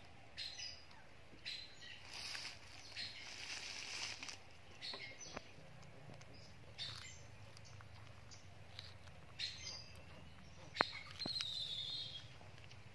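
Faint, scattered soft crunching and rustling as a baby pig-tailed macaque eats a corn cob held in a person's hand, with a sharp click and then a brief high chirp about eleven seconds in.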